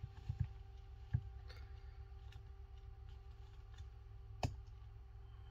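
A few scattered light clicks as a thin metal pry tool works along the edge of a Samsung Tab S2's back cover, separating it from the frame. The sharpest come about a second in and again past four seconds, over a faint steady hum.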